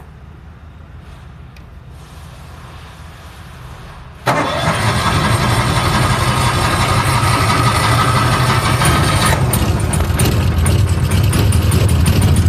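Denyo ACX140GSS soundproofed engine-driven welder started on its key switch: about four seconds in the engine catches abruptly and runs loud and steady.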